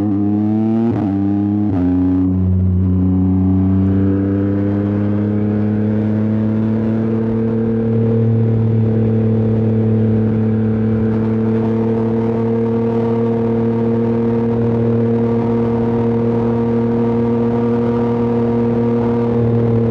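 Yamaha R9's 890 cc inline-three engine under way, its note falling in three quick steps over the first two seconds as it shifts up through the gears. It then settles into a steady cruise, rising slightly about seven seconds in.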